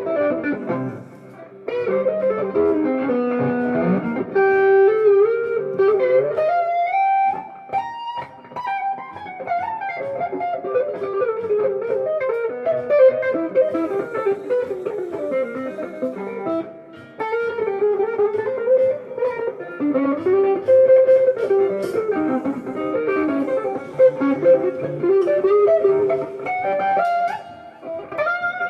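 Jazz fusion music led by guitar playing flowing single-note melodic lines, with some notes sliding in pitch.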